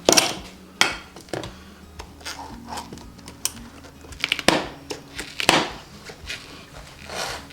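Pry bars clanking and scraping against a dirt bike's spoked wheel rim while levering a stubborn tire bead off. There are several sharp knocks, the loudest two about four and a half and five and a half seconds in.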